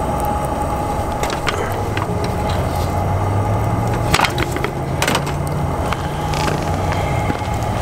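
Wood cracking and snapping in a few scattered sharp cracks, the strongest two near the middle, over a steady background hum.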